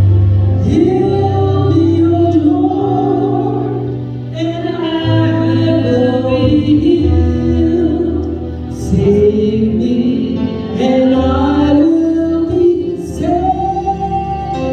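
Gospel song with a singing voice over sustained keyboard and bass chords.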